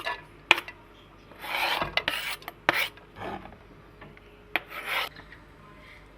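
A series of short rasping, scraping strokes, each under half a second, with a few sharp clicks between them, from kitchen food preparation. The strokes thin out toward the end.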